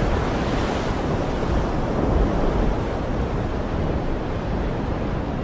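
Stormy sea with wind: waves surging in a steady, loud rushing noise.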